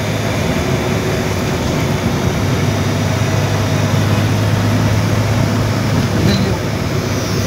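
Steady road noise of a car driving at speed on a highway, heard from inside the car: an even rush of tyre and wind noise over a constant low hum.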